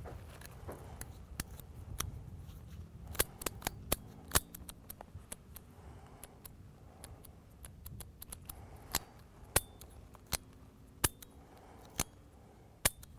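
Sharp metallic clicks of a dirt-fouled Smith & Wesson 638 snub-nose revolver's action being worked by hand as it is dry fired. About a dozen clicks come at uneven intervals: a quick cluster around three to four seconds in, then a slower run of about one a second in the second half. The grit-clogged trigger is not returning well and has to be pushed forward each time.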